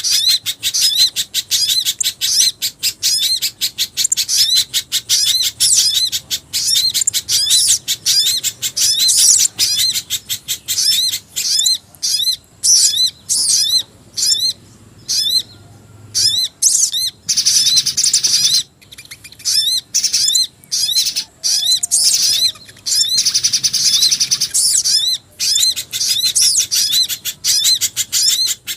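Bird-lure recording of pijantung gunung (spiderhunter) and jingjing batu calls mixed together: rapid, high, sharp chirps repeated many times a second. About midway there are gaps between runs of chirps and two stretches of denser buzzy trilling.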